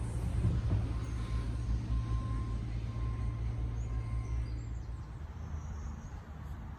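A vehicle engine running with a steady low hum that drops away about five seconds in, over a general outdoor noise haze.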